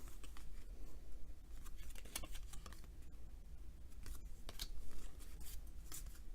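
Baseball trading cards being flipped and slid over one another one by one, a string of short, crisp card flicks and swishes at an uneven pace.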